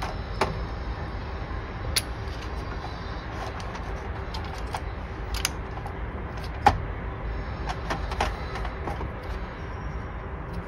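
Plastic clicks and rattles of split-core current transformers and their coiled lead wires being handled and clipped onto the phase wires: a handful of scattered sharp clicks, the loudest about two-thirds of the way through, over a steady low background rumble.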